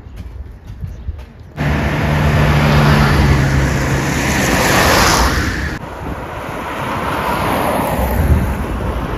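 Street traffic noise with a steady engine hum, starting abruptly about one and a half seconds in and changing abruptly to a quieter mix about six seconds in.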